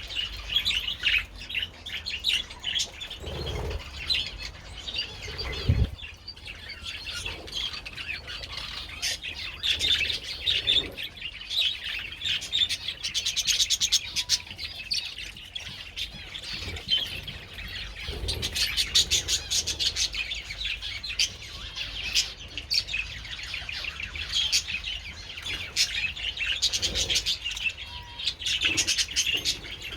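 A flock of budgerigars chattering and warbling continuously, with a couple of low thumps a few seconds in.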